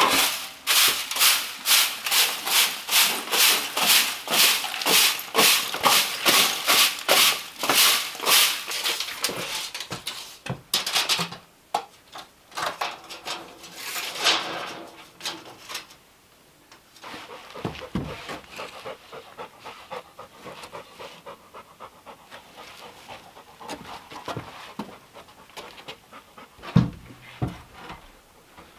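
A dog panting hard close by, quick even breaths about three a second, which fade out after about ten seconds. After that come scattered light knocks and a few dull thumps.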